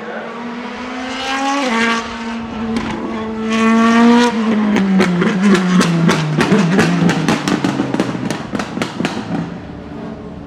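Mercedes-AMG C63 DTM race car's 4.0-litre V8 accelerating hard, with a sudden drop in revs just under two seconds in as it changes up. About four seconds in the note starts falling, and a rapid string of exhaust crackles and pops follows on the overrun.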